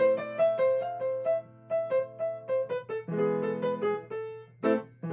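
Acoustic grand piano played solo and improvised in A minor: a quick melody of single notes in the upper middle range, then fuller, lower chords from about three seconds in.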